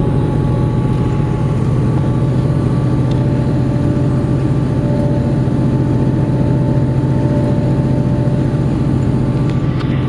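Steady engine and road noise of a bus at speed, heard from inside the passenger cabin: an even, low rumble with a few faint steady whining tones over it.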